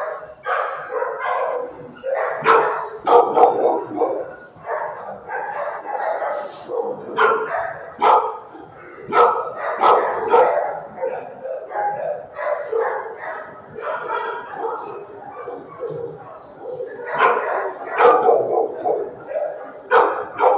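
Several dogs barking and yipping over one another without pause in a shelter kennel block, the barks echoing off the hard walls.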